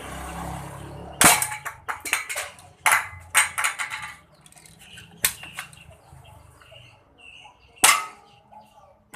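Toy shotgun firing plastic pellets: four sharp shots spaced about two seconds apart, the first and last loudest, with smaller clicks and rattles between them.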